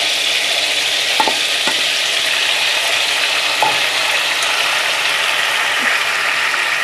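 Hot oil in a steel kadhai sizzling steadily as tomato-onion paste is strained through a metal sieve into it. A few faint clicks come through the sizzle.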